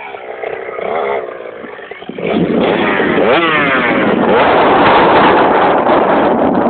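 Dirt bike engine running at low revs, then opened up hard about two seconds in: the revs climb and the engine stays loud as the bike pulls away.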